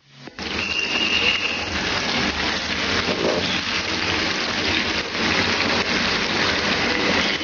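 Sliced onions sizzling steadily as they fry in hot bubbling oil in a pan.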